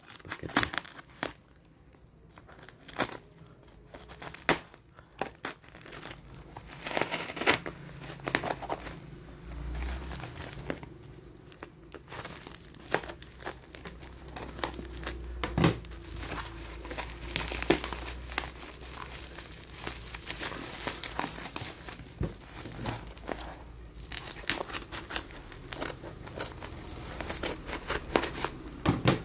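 A parcel being unboxed by hand: packaging crinkling and tearing, with many small clicks and knocks from handling.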